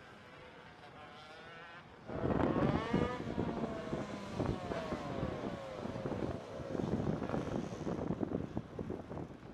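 Two-stroke ROK shifter kart engines running at low revs as the karts come in off the track. The sound is faint at first, comes in loud and sudden about two seconds in, and its pitch falls over the next few seconds as the engines slow.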